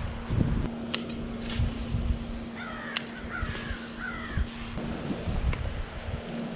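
A crow cawing three times in quick succession, over wind buffeting the microphone.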